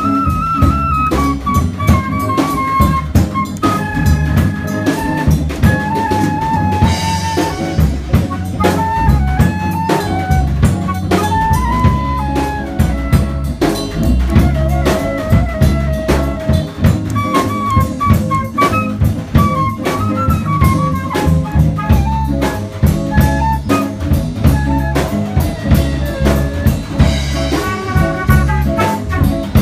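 Swing-jazz band playing an instrumental passage: a flute carries a melody of single notes over a busy drum kit and a low bass line.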